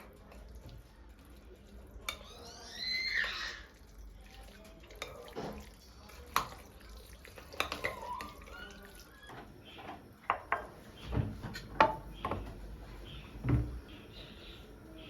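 Kitchen sink sounds: water running and dripping, with dishes and utensils clinking. A cluster of sharp knocks and clatters comes in the second half.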